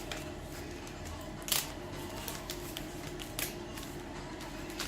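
Replacement laptop LCD and its protective packaging being handled: a few short, sharp clicks, the loudest about a second and a half in, over a steady low hum.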